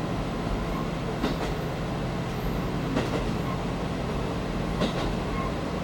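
KiHa 185 diesel express railcar running along the line, heard from on board: a steady low engine and running rumble, with three sharp clicks from the wheels over the rails.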